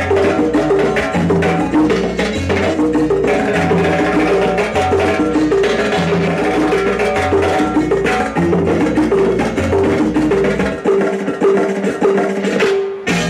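Loud Latin dance music from a sonidero sound system, with a bouncing bass line and a steady beat of woody percussion clicks. Near the end the bass drops out for a couple of seconds.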